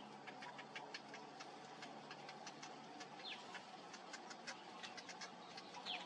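Faint bird calls: rapid, irregular high ticking with two short falling chirps, one about three seconds in and one near the end, over a steady low background drone.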